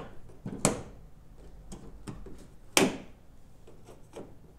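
Sharp clicks and knocks from a Nissan 240SX hood being handled and lowered onto the car, with two louder knocks, one just under a second in and one just under three seconds in.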